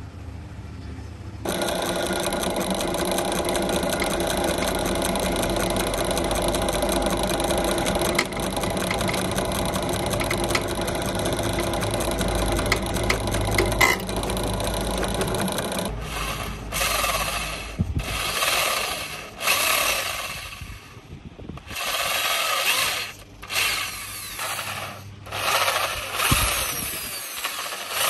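Drill press running steadily as its bit cuts through a small steel plate. About halfway through it gives way to an electric hand drill boring into a wooden handle in short on-off bursts.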